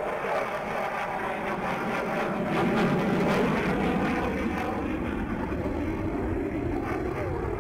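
F-22 Raptor's twin Pratt & Whitney F119 turbofan engines in flight: a steady jet roar that swells a little about three seconds in.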